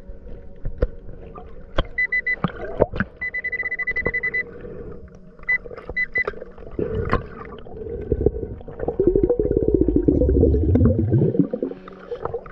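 Underwater metal detector beeping: a short steady tone about 2 seconds in, a longer one at about 3–4.5 s, and quick pips near 6 s. Behind the beeps are muffled underwater clicks and knocks. From about 7 s to 11.5 s comes a long gurgling rush of bubbles.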